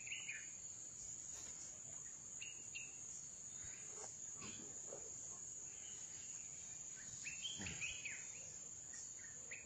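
Steady high-pitched drone of insects, with short bird chirps scattered through it.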